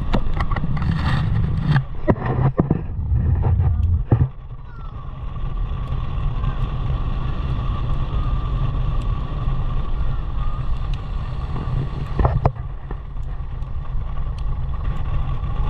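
Car driving on an open road, heard inside the cabin as a steady low rumble of road and engine noise. A few sharp knocks come in the first four seconds, and another comes about twelve seconds in.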